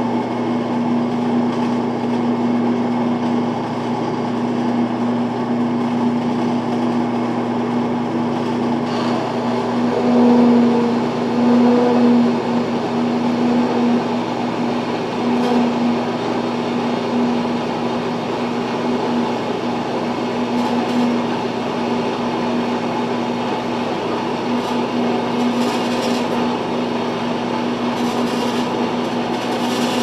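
Kalamazoo horizontal metal-cutting bandsaw running steadily, its blade cutting through a clamped metal bracket piece at an angle, with a steady motor hum.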